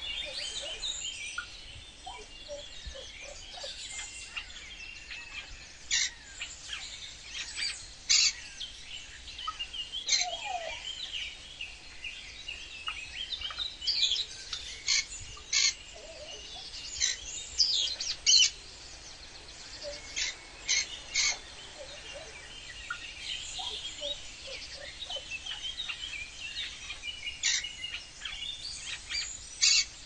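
Several birds chirping and calling: short, sharp, high calls that come in clusters every second or two, over a faint steady background noise.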